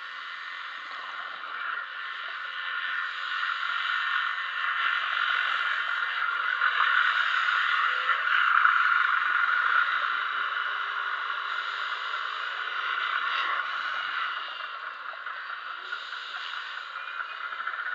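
Steady underwater hiss and rush of water heard through a camera's underwater housing. It swells toward the middle and eases off again.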